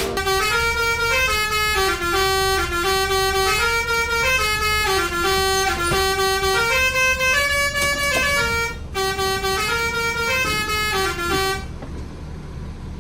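Basuri multi-tone telolet bus horn playing a melody of sustained notes stepping up and down, with a short break about nine seconds in. The horn stops near the end, leaving quieter background noise.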